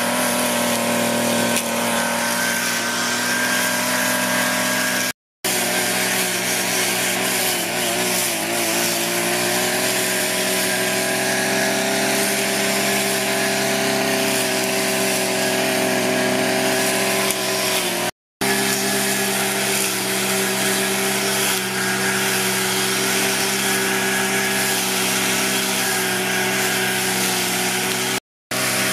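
A small engine running steadily at a constant speed, broken by three brief dropouts.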